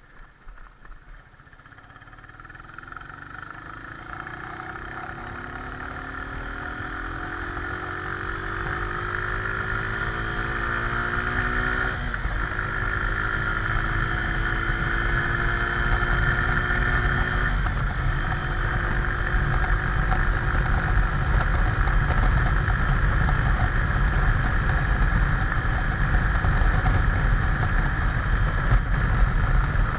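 Motorcycle engine pulling away from a crawl and accelerating, its pitch rising steadily, with a gear change about twelve seconds in and another about eighteen seconds in. Wind noise grows louder as speed builds.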